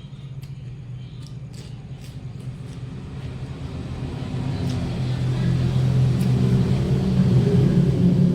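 A motor vehicle engine rumbling low, growing steadily louder over several seconds as it comes closer. A few faint chewing clicks in the first two seconds.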